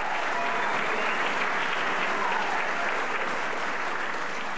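Large theatre audience applauding, dense steady clapping.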